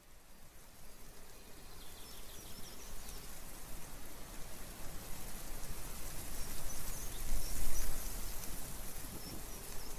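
Outdoor ambience: a steady rushing noise that fades in from near silence and slowly grows louder, with a low rumble swelling briefly about seven to eight seconds in. Faint high chirps sound over it now and then.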